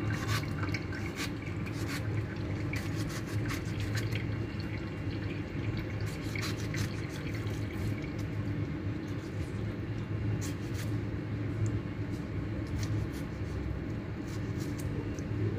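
Kitchen knife slicing a tomato held in the hand, with scattered small clicks and soft drops as pieces fall into a steel bowl of vegetables. A steady low hum runs underneath.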